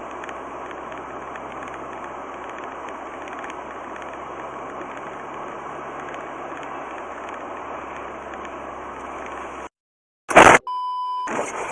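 Steady road and engine noise heard from inside a car through its dashcam. About ten seconds in the sound drops out and then comes a sudden loud bang, the rear-end impact with the braking car ahead, followed by a short steady beep.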